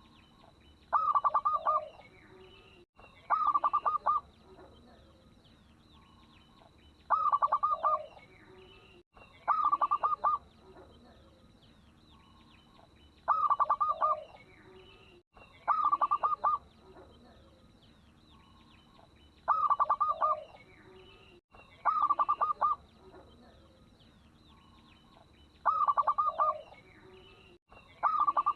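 Local zebra dove (perkutut) cooing in rapid pulsed phrases of about a second each. The phrases come in pairs, repeating at an even pace about every six seconds, as a lure call. A faint steady high whine runs underneath.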